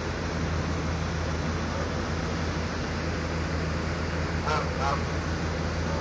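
Canada goose giving two short honks, about four and a half seconds in, over a steady low mechanical hum.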